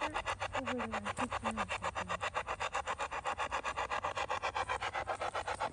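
Spirit box sweeping through radio stations: fast, even chops of static at about ten a second, with short snatches of broadcast voice breaking through in the first two seconds.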